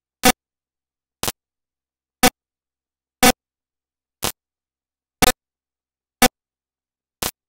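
Short, sharp ticks, one each second, eight in all, with dead silence between them and no game or crowd sound.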